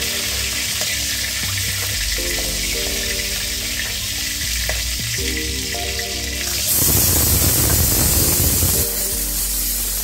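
Hot oil sizzling in a steel kadai as fried cauliflower florets are lifted out with a metal spatula. For about two seconds in the second half the hiss swells into a louder rush.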